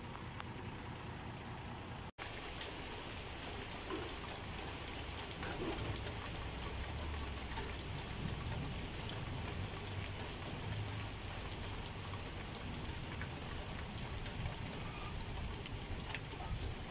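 Steady rain falling: an even hiss peppered with fine drop ticks, over a low rumble. The sound breaks off for an instant about two seconds in.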